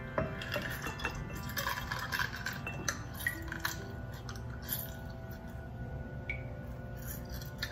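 Hand-held citrus press squeezing a lime over a glass: scattered small clicks and clinks of the press, with juice dripping into the glass. Soft background music runs underneath.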